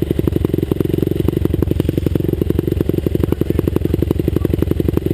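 Motocross motorcycle engine running at low, steady revs: an even beat of about ten to twelve pulses a second with no revving up or down.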